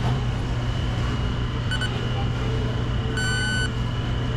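Ingenico card terminal beeping as a phone is tapped for contactless payment: a short beep, then a longer beep about a second and a half later, signalling the card read. A steady low hum runs underneath.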